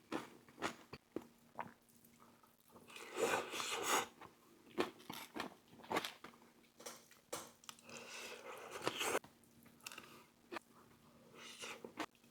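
Close-up eating sounds of a person biting and chewing a Philly cheesesteak loaded with lettuce, peppers, pickles and mayo: wet mouth clicks and crunching, with a couple of longer, louder spells of chewing.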